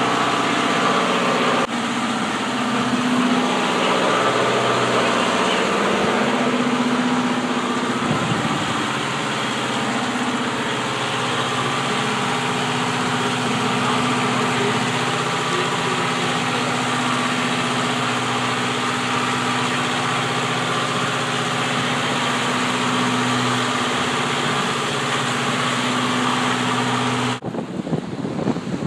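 An engine running steadily aboard a flooded boat, with a constant hum and hiss. It cuts off suddenly near the end, leaving wind on the microphone and the wash of waves.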